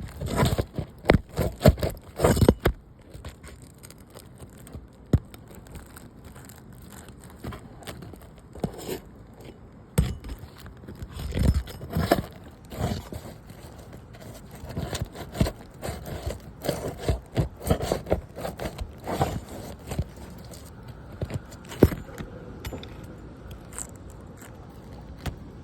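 Metal tool scraping, clicking and knocking against roof shingles as nails are pried out from under them, in irregular short strokes.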